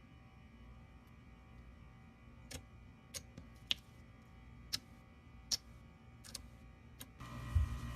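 Faint room tone, then a scatter of sharp light clicks at irregular intervals, and a steady mechanical hum that starts near the end.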